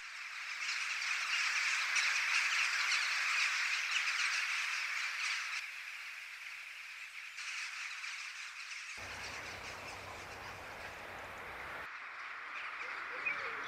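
A large flock of rooks and jackdaws calling together at a roost, the individual caws merging into one dense clamour. It is loudest for the first five or so seconds, then eases off to a lower, steady din.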